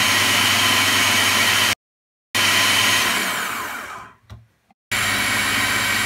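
Food processor motor running at full speed, mixing pancake batter lightly in short runs. About three seconds in it is switched off and spins down with a falling whine, then starts again near the end.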